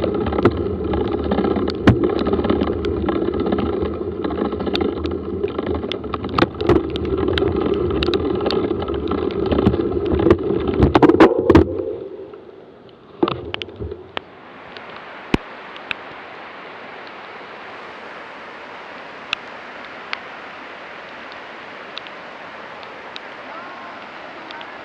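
Loud rumbling, rattling ride noise with many sharp knocks, which dies away about twelve seconds in. It leaves a steady, even rush of falling water from a waterfall, with a few faint clicks.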